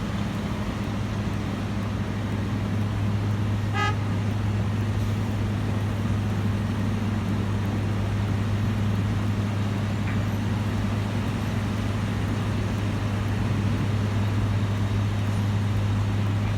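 Heavy road-works machinery stripping old asphalt, running with a steady low drone. A short beep sounds about four seconds in.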